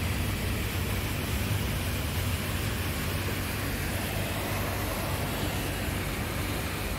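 Steady outdoor noise of rain and traffic on a flooded street: an even rushing hiss over a constant low hum, with vehicles driving slowly through standing water.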